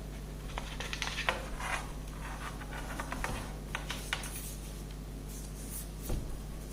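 Light rustling, scratching and small clicks of wired sugar-flower stems and a ribbon pick being handled and wound together by hand.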